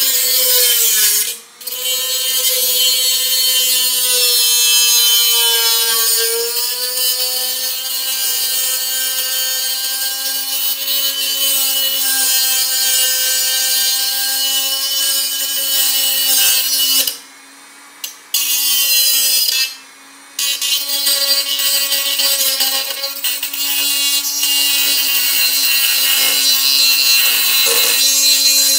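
Black+Decker RT18KA rotary tool spinning a small cutting wheel through the thin steel of a tin can: a steady high motor whine over a harsh scraping hiss of the wheel biting the metal, its pitch sagging slightly under load. The sound drops away briefly twice about two-thirds through, then resumes.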